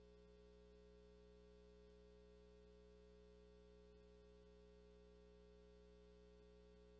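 Near silence: a faint, steady hum with no other sounds.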